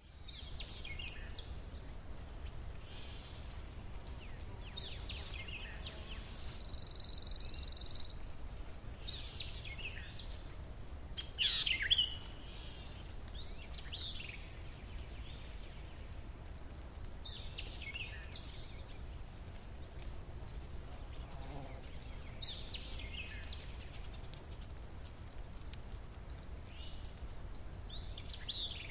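Outdoor ambience with birds calling: short phrases of falling chirps every few seconds, the loudest about twelve seconds in, over a steady low rumble and a thin steady high hiss.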